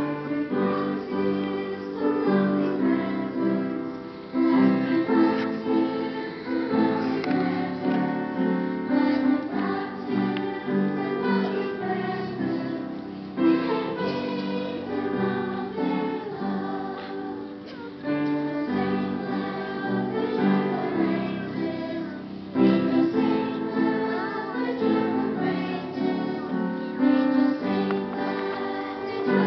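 Group of young children singing a song together as a choir, with instrumental accompaniment.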